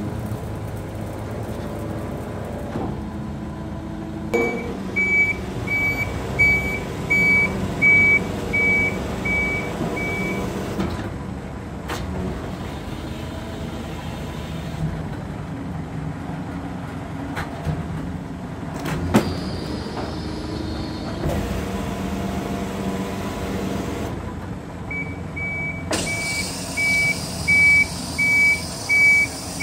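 Rear-loading garbage packer truck running its hydraulic compaction cycle: the engine and hydraulic pump run steadily while the packer plate sweeps through the hopper, with a few sharp knocks and clanks. A high warning beep repeats about one and a half times a second for several seconds early on and again near the end, with a hiss in the last few seconds.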